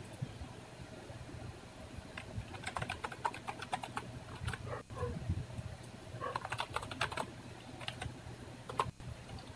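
Computer keyboard typing: several short runs of key clicks with pauses between, starting about two seconds in.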